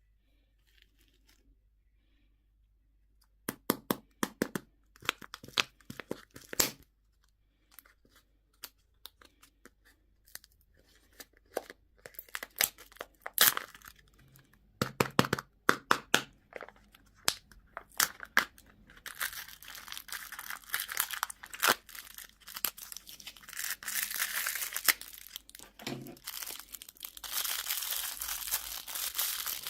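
A candy wrapper being torn open and crinkled by hand. It starts a few seconds in as sharp, separate crackles and becomes continuous crinkling about two-thirds of the way through.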